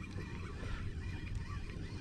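A steady low rumble, with birds calling faintly in the background in short wavering chirps.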